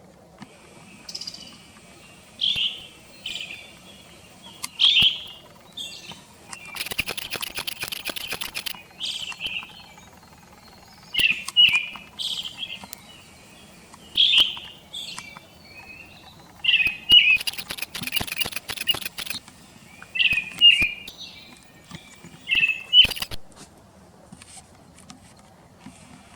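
Brown-headed thrush song from a bird-guide recording: short whistled phrases repeated every second or two, with a harsh rapid rattling burst of about two seconds twice, once about seven seconds in and again near the middle.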